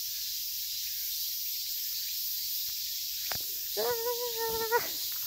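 Steady hiss of a small rocky mountain stream running. A click comes about three seconds in, and a short, steady pitched hum lasting about a second follows near the end.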